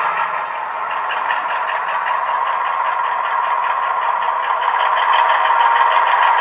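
Diesel engine sound of a Class 35 Hymek played from a DCC sound decoder through a small speaker in a 00 gauge model locomotive. It is steady, thin and mid-pitched with almost no bass, with a regular engine beat, and the volume is set too loud.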